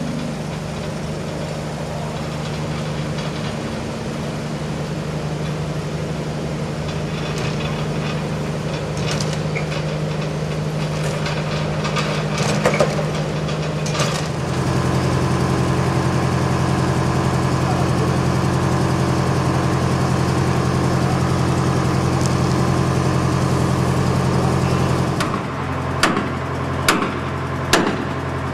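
Aircraft tow tractor's engine running steadily while towing a wing on wheeled dollies, louder from about halfway through. Near the end the engine sound drops away and a few sharp knocks follow.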